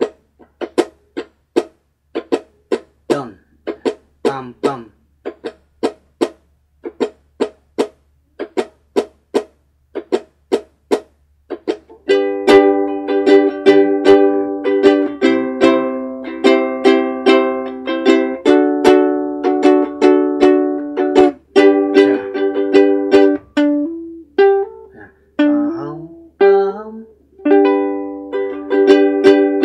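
Ukulele strummed: short, choked chords about twice a second for the first dozen seconds, then full ringing strummed chords in a steady rhythm, a G chord among them.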